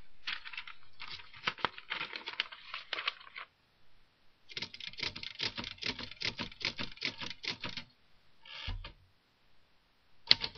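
Manual typewriter keys striking in two quick runs of many clacks, with a short pause between them. A brief thump follows just before the end.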